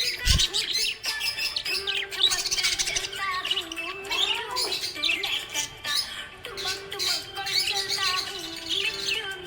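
Small pet parrots, budgerigars, chirping and twittering rapidly and continuously, with one low thump just after the start.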